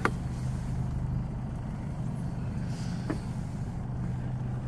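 Small outboard kicker motor running steadily with a low, even hum. A sharp click sounds right at the start and another about three seconds in.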